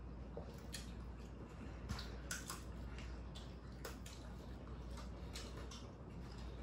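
Eating sounds: chewing and wet mouth smacking with irregular small clicks and taps of plastic forks on takeout containers.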